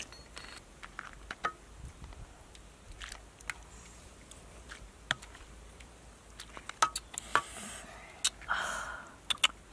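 Scattered sharp clicks and taps, more frequent and louder in the second half, with a brief scraping rush about eight and a half seconds in.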